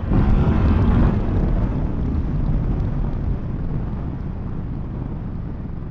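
Motorcycle riding noise from a Yamaha MT-10 SP: its engine mixed with wind rushing over the microphone. It is loudest in the first second, then eases off and grows steadily quieter as the bike slows.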